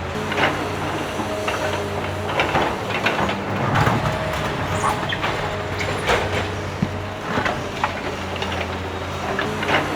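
A small motor hums steadily while sharp clicks and clacks come at irregular intervals, like the mechanism of a miniature model machine or toy train working on its track.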